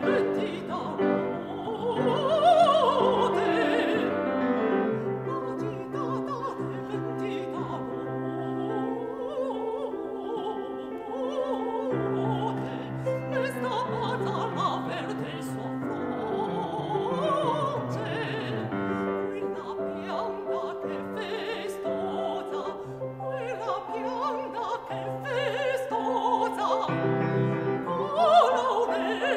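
A woman singing in operatic style, with long held notes and wide vibrato, over piano accompaniment.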